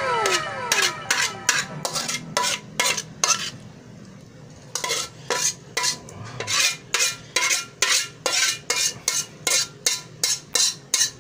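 Metal spoon scraping and clinking against a cooking pan as chicken pastel stew is scooped out into a glass serving bowl, in quick repeated strokes about three a second with a short pause before the middle. A ringing tone from the pan fades away in the first second.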